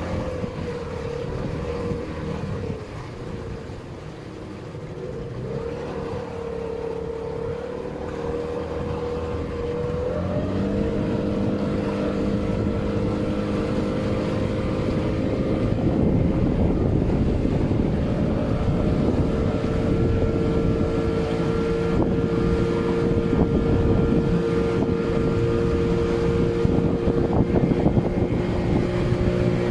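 Motorboat engine running: its pitch wavers, steps up about ten seconds in and then holds steady, getting louder, with wind rushing on the microphone.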